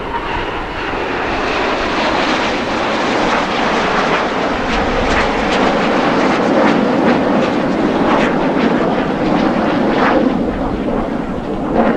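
Jet noise from a formation of BAE Systems Hawk jets and their Rolls-Royce Adour turbofans flying past. The noise builds over the first couple of seconds and stays loud and rough.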